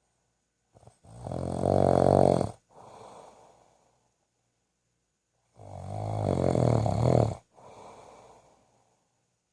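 Snoring: two long, rattling snores about five seconds apart, each followed by a softer, fading breath.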